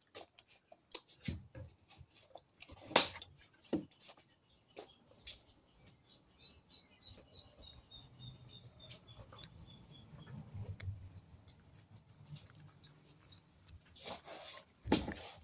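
Close-up eating sounds: fried tripe being chewed and bitten, scattered crackles and mouth clicks, with a louder crunching bite near the end. In the middle a bird calls a quick run of high, evenly spaced notes for a few seconds.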